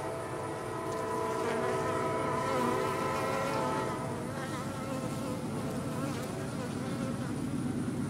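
Honey bees humming on a comb frame lifted from an open hive: a steady drone made of many pitches together.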